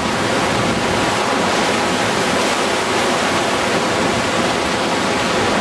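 Loud, steady rush of churning whitewater rapids, heard up close from a small inflatable raft riding through them.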